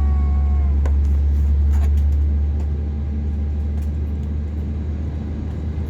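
Steady low hum and rumble inside an Airbus A320neo passenger cabin during pushback, easing slightly in loudness about two and a half seconds in.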